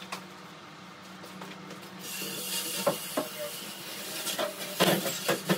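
An aluminium stepladder being picked up, moved and set down: a few sharp metal knocks and clanks in the second half, the loudest near the end, over a steady hiss that begins about two seconds in.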